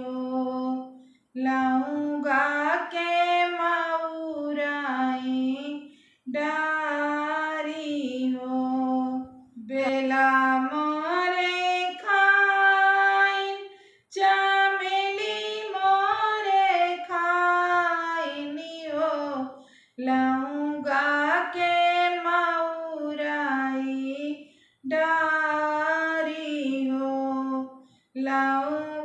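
A woman singing a Bagheli folk wedding song (vivah geet) unaccompanied, in phrases of about four to five seconds separated by short pauses for breath.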